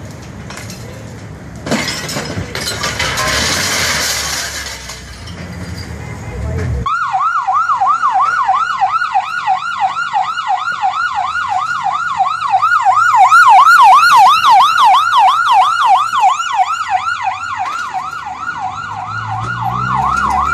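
A loud rushing noise swells and fades a couple of seconds in. About seven seconds in, an emergency vehicle siren switches on abruptly in a fast yelp, its pitch sweeping up and down about three times a second, and keeps going.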